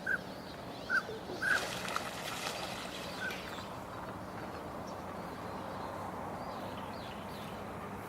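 Birds giving short, sharp calls, four of them in the first three and a half seconds, with a brief rushing noise about a second and a half in, then only a steady outdoor hiss.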